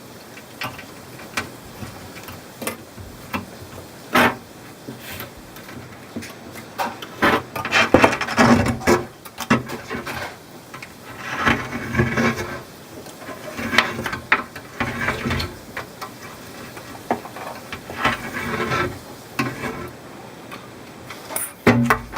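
A hand tool scraping and rubbing at a corner of a glass aquarium in irregular bursts of strokes, with scattered clicks and knocks of metal on glass.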